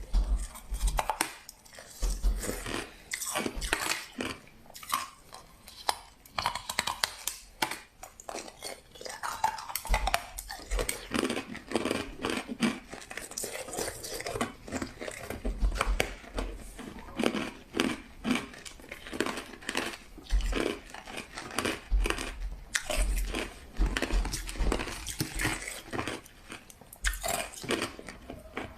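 A person biting and chewing crushed ice: a steady run of crisp, irregular crunches, several a second.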